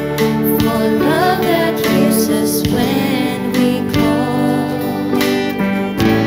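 Live worship band playing a slow song: strummed acoustic and electric guitars, bass and drums, with women's voices singing the melody from about a second in.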